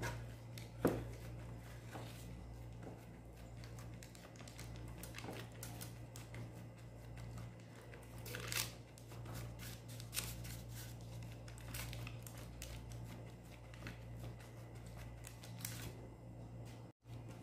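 Disposable plastic glove and the crinkly sheet lining a baking tray rustling and crinkling softly as a dough ball is pressed flat by hand, over a steady low hum, with a sharper tap about a second in.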